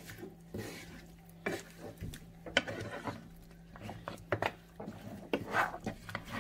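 A spoon stirring and turning chunky cow-foot pieces in thick sauce in a metal pot, giving irregular wet squelches and short knocks and scrapes against the pot.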